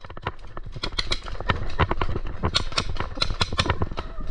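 Paintball fire: a rapid, uneven string of sharp pops and knocks, several a second.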